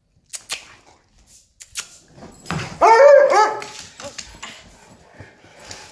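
Dog barking in play: a few sharp knocks in the first two seconds, then a quick run of loud barks about two and a half seconds in, each rising and falling in pitch, trailing off into quieter scuffling.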